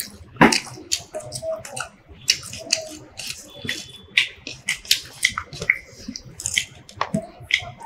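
Close-up eating sounds: wet chewing and lip smacking, with food being mixed by hand on a plate, in a quick irregular run of small clicks and squelches.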